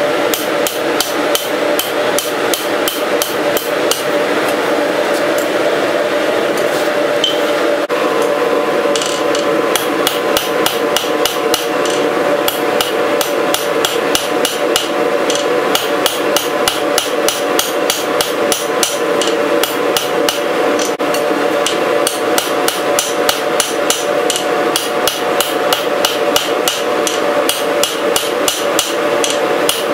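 Hand hammer striking a red-hot steel bar on an anvil, an even run of blows about three to four a second with a short pause about eight seconds in, over a steady hum.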